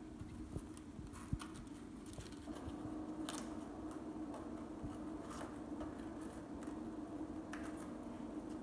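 Wet lettuce leaves being handled and rubbed in a plastic bowl of water: faint, scattered crinkling and squishing of the leaves. A steady low hum runs underneath.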